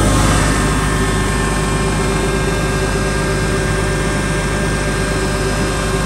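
Diesel engine of a Dynapac SD2500CS asphalt paver running steadily, heard close to the open engine bay, with a thin steady whine over the engine drone.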